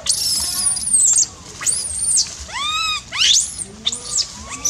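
Baby macaque giving about five shrill, high-pitched distress cries in quick succession, each rising and falling in pitch: a frightened infant screaming.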